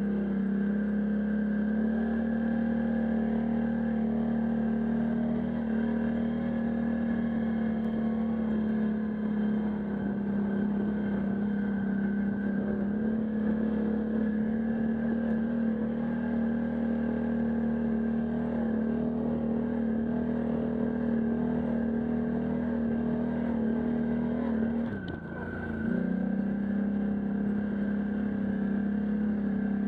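Can-Am Outlander ATV engine running steadily at an even pitch. About 25 seconds in, it drops briefly and falls in pitch, then picks back up.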